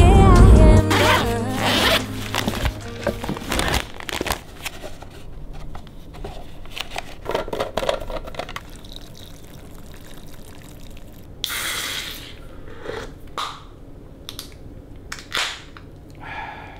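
Music with a deep bass that drops away about a second in, followed by small clicks and handling knocks. About eleven seconds in, water pours briefly from a stainless steel thermos into instant cup noodles.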